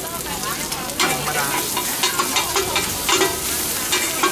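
Pad thai frying on a large flat iron pan: egg, tofu and dried shrimp sizzle while two metal spatulas scrape and clatter against the pan. The strokes come at irregular spacing from about a second in.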